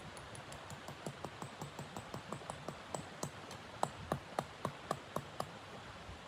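Rapid, irregular crackling clicks and pops over a steady low hiss, loudest around the middle and thinning out near the end.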